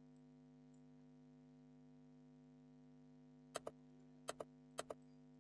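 Computer mouse clicking three times, each a quick double click-clack of the button pressing and releasing. The clicks start about three and a half seconds in and come roughly half a second apart, over a faint steady electrical hum.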